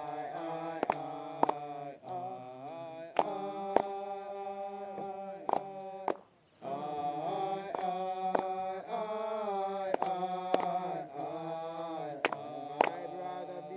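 Slow hymn chanting in long, drawn-out sung notes, with sharp percussive beats striking about once a second. The singing breaks off briefly about six seconds in.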